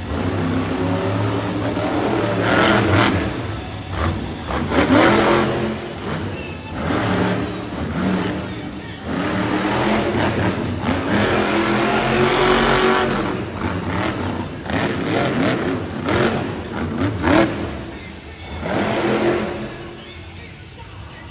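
Monster truck's supercharged V8 engine revving hard in repeated surges as the truck turns on dirt, easing off near the end.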